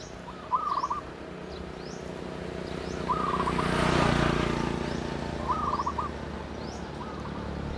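Zebra doves cooing: short rippling, stuttered phrases repeated every two seconds or so, with fainter high chirps of small birds between them. A broad rush of noise swells up and fades away around the middle.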